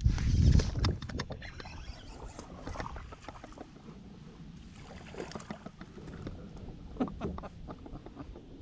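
A hooked bass landed into a plastic fishing kayak. A loud burst of splashing and knocking comes in about the first second, then scattered clicks and taps as the fish and tackle are handled.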